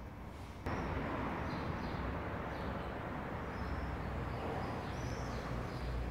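Small birds chirping in short calls, over a steady noise that sets in abruptly under a second in.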